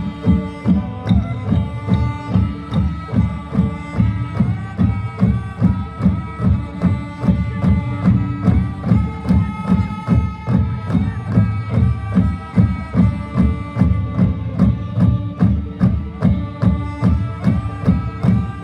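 Manipuri drums played in a steady, even rhythm, with held pitched tones sounding above the beat.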